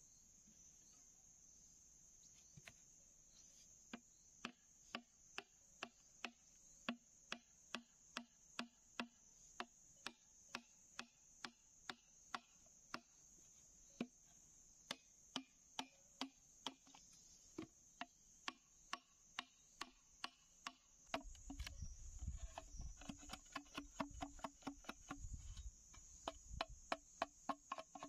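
Machete chopping into a green bamboo tube in short, regular strokes about two a second, starting a few seconds in and coming faster, with dull low thumps, near the end. A steady high insect chirring runs underneath.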